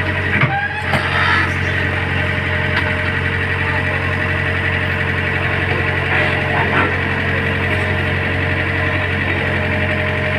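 Engine idling steadily with a low, even hum, with a short clatter about half a second to a second in.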